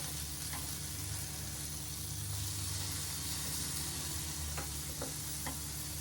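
Wontons sizzling steadily in a hot pot, with a few light clicks of utensils against the pot.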